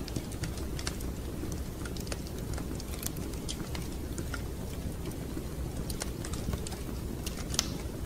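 Wood fire crackling in a fireplace: irregular sharp pops and snaps, one louder snap near the end, over a steady low rumble.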